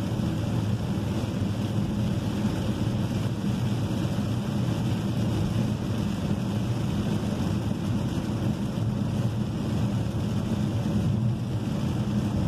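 Steady cabin noise of a Chevrolet car driving on a wet highway in heavy rain: a low road rumble with tyre hiss off the wet road and rain on the body, without letup.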